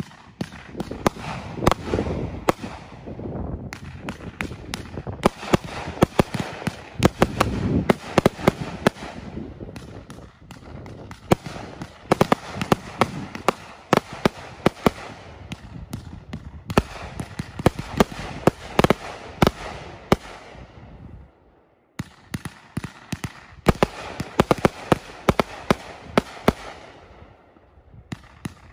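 A 1500-gram Pro Series Finale Box multi-shot firework cake firing in rapid volleys: launch thumps and aerial bursts with a dense crackle of small reports. It stops briefly about three-quarters of the way through, then fires again.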